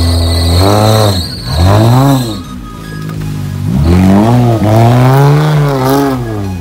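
Off-road 4x4 competition vehicle's engine revving hard in repeated surges, rising and falling about four times, as its wheels spin in deep mud.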